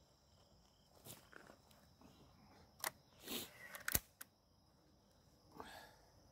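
B3-1 .177 air rifle being handled: a few clicks about three to four seconds in, the sharpest one near four seconds, with soft rustles around them.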